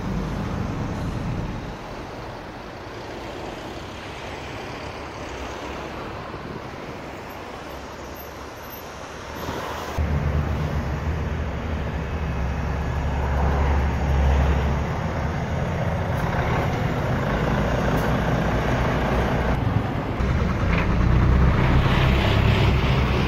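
Slow-moving road traffic with engines running. About ten seconds in, the engines of heavy diesel vehicles running close by come in much louder and lower.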